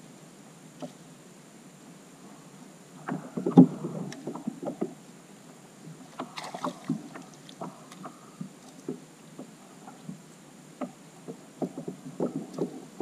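Scattered knocks and bumps on a fishing kayak as a fish is brought aboard, busiest and loudest about three to five seconds in, with lighter knocks through the rest.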